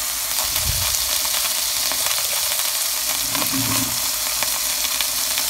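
Cubes of saikoro (diced beef) steak sizzling in hot oil in a frying pan: a steady, crackling hiss, with a brief low bump a little under a second in.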